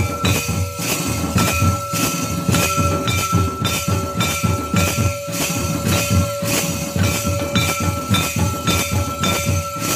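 Ritual drumming on a laced barrel drum, beaten in a fast, even rhythm with jingling bells. A steady ringing tone runs underneath the whole time.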